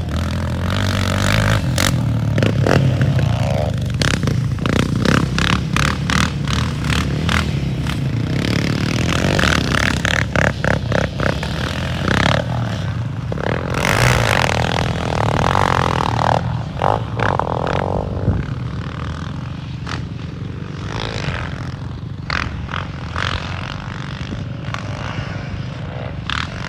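Yamaha Raptor 700 quad's single-cylinder engine running as it is ridden, with a rise in engine pitch about halfway through. Clattering and scraping noises come and go throughout.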